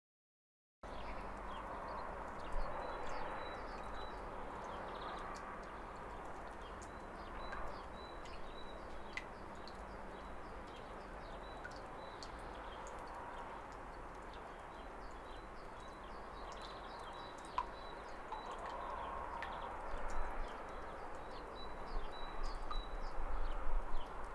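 Outdoor ambience soundtrack: a steady background hiss and low hum with many short bird chirps scattered through it, starting after about a second of silence. It grows louder and choppier near the end.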